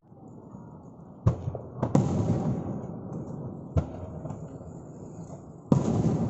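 Aerial fireworks shells bursting: four sharp bangs, each trailing off into a rumbling crackle.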